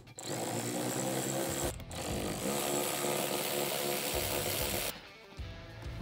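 Power drill/driver running in two stretches, about a second and a half and then about three seconds with a brief stop between, backing out the screws of a battery cover.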